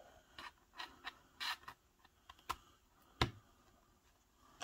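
Handling noise from a portable monitor and its cable being moved about and hooked up: scattered light clicks and short scrapes, the sharpest click about three seconds in.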